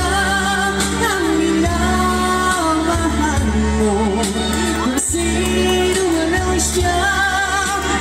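A singer holding long notes with vibrato over instrumental backing music with a steady bass line.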